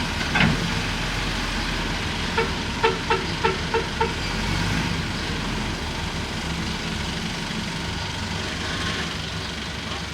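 Bulldozer's diesel engine running steadily. There is a knock about half a second in, and a quick run of about six short beeps a little over two seconds in.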